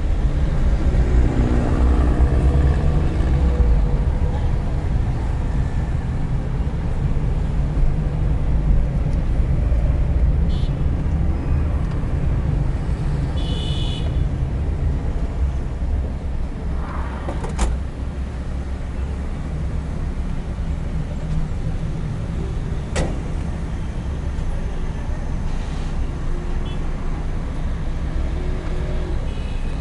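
Busy city street traffic: a steady low rumble of engines, with a brief high horn toot just before halfway and two sharp clicks in the second half.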